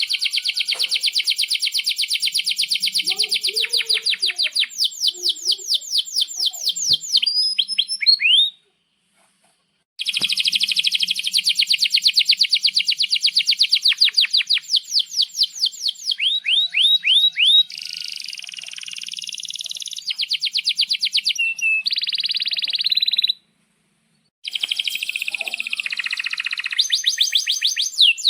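Domestic canary singing long rolling trills of rapid repeated high notes, with some faster sweeping phrases, broken twice by a brief silence.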